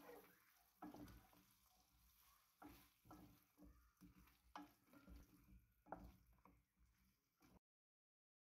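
Very faint stirring of sticky glazed pork in a pan, with a few soft clinks and knocks of the utensil against the pan; otherwise near silence, dropping to dead silence near the end.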